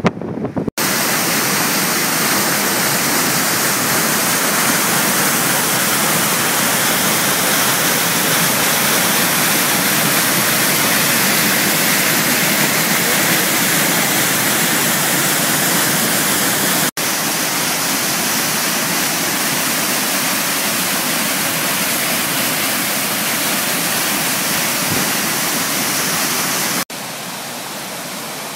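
Waterfalls rushing: a steady, dense roar of falling water, cutting abruptly from one falls to another twice, with the last one somewhat quieter.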